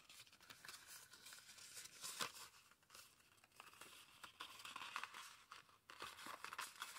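Faint rustling and crinkling of card stock as a folded 3D viewfinder greetings card is handled, turned over and pulled open into its layers, with irregular small crackles, a little louder about two seconds in and again around five to six seconds.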